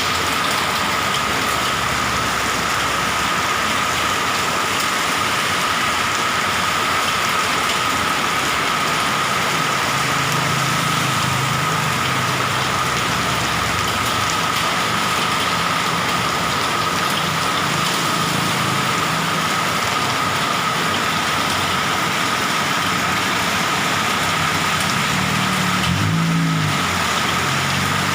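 Heavy rain pouring down in a steady, dense hiss, with a thin high tone running through it.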